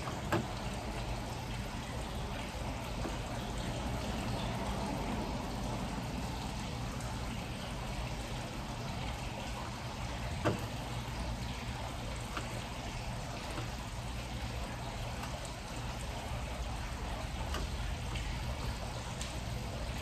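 Steady rushing background noise with a low hum underneath, broken by two light clicks, one just after the start and one about halfway through.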